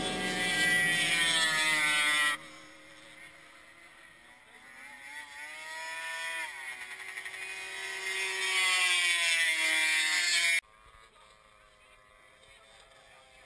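Racing snowmobile engines, a high engine whine whose pitch climbs and falls as the sleds accelerate and pass. It cuts off sharply about two seconds in, comes back quieter and builds to loud again, then cuts off abruptly near the three-quarter mark.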